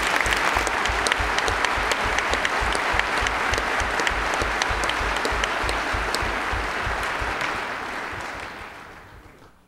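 A large crowd applauding, a dense patter of many hands clapping that dies away over the last couple of seconds.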